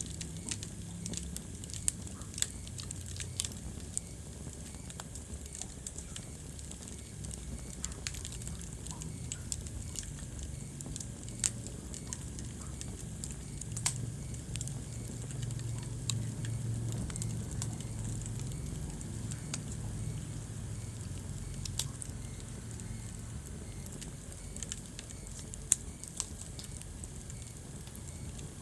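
Wood fire burning in a fireplace: a steady low rumble of flames with frequent sharp crackles and occasional louder pops.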